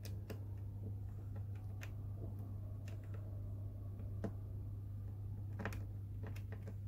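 Low steady hum of a model railway transformer, with scattered light clicks and taps over it.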